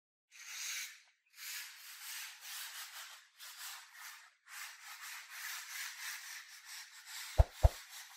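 Rubbing, scraping noise in several stretches with short gaps. Two sharp thumps come close together near the end.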